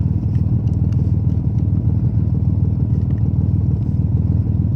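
Steady low rumble of an idling vehicle engine running close by, with a few faint clicks over it.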